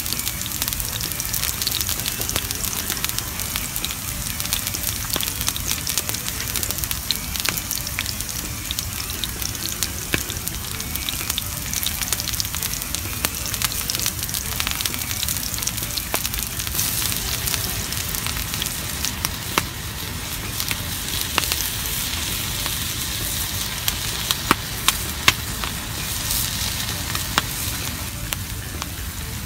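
Two thick steaks sizzling in a black steel frying pan over a wood fire: a steady hiss of frying fat dotted with fine crackles, with a few louder ticks near the end.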